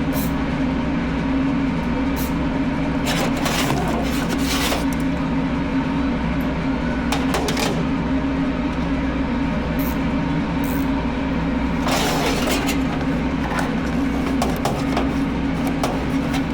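Steady machine hum with a low drone, with scattered clicks and a few brief rushing noises over it.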